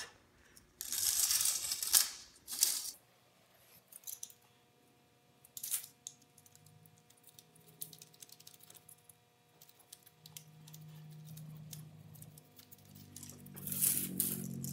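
A spline roller tool scraping and clicking as it presses rubber spline into the channel of a metal window-screen frame, with handling noise from the screen mesh. Short bursts come about a second in and again near the end, over a faint steady hum.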